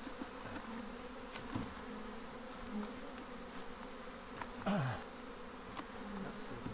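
Steady buzzing hum of many honeybees flying around an open hive. About two-thirds of the way through, one bee passes close, a louder buzz that drops in pitch.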